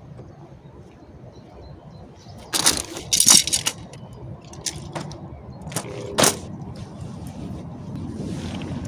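A few sharp clatters and knocks, loudest and closest together about two and a half to three and a half seconds in, then single knocks a few seconds later, over a low steady rumble.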